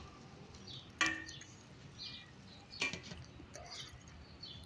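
Two faint clinks of a spoon and a glass lid against a metal cooking pot as the curry is stirred and covered: one about a second in with a short ring, another just before three seconds.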